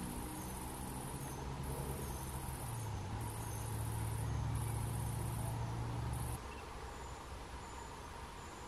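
High-pitched insect chirring in repeated trills of about a second each with short breaks, over a low rumble. Both stop abruptly about six seconds in, leaving a fainter hiss.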